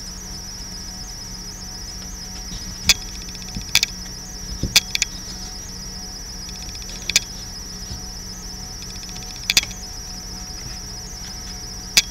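Crickets trilling steadily in a high, unbroken chorus. About half a dozen sharp clicks and snaps come at irregular intervals as a deck of oracle cards is shuffled and a card is laid down.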